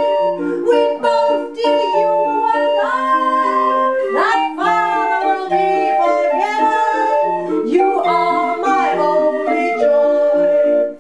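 A 20-tone hand-cranked street organ built by Florian Tilgner playing a tune of steady held notes, with a woman singing over it in stretches.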